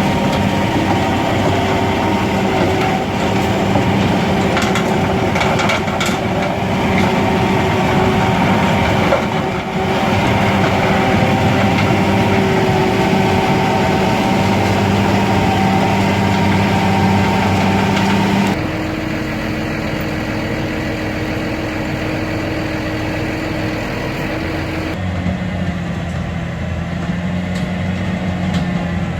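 Large farm tractor's diesel engine running steadily as it drives a heavy rotavator, with a dense mechanical clatter. The sound shifts abruptly twice, from one shot to another.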